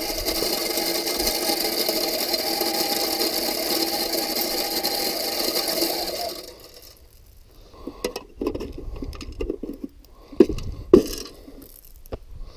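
A barrel deer feeder's 6-volt spinner motor whirs steadily for about six and a half seconds, flinging corn out from under the barrel, then stops suddenly. After it come scattered knocks and rustling, with two sharp clicks near the end.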